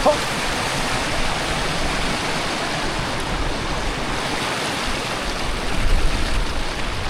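A Highland stream rushing steadily over rocks, a continuous noise of flowing water. Toward the end a low rumble of wind on the microphone builds.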